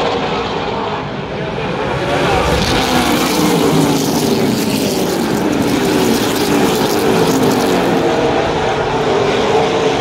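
A pack of ARCA Midwest Tour super late model race cars running around the track, their V8 engines sounding together, growing louder about two seconds in as the engine note rises.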